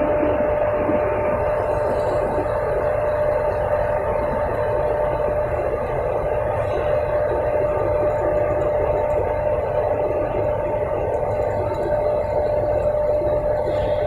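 Long troughed belt conveyor running loaded with returned coke and sinter ore, giving a steady rumble with a constant whine through it.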